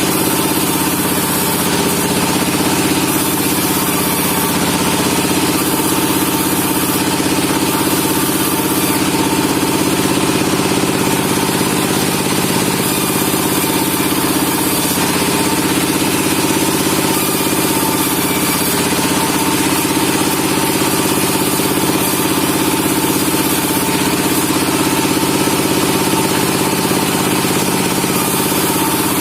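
Sawmill machinery running steadily while pine logs are sawn, a loud, unchanging mechanical hum.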